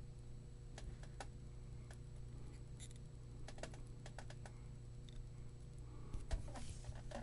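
Scattered small clicks and taps of hand soldering work on a circuit board, over a steady low hum, with one louder thump about six seconds in.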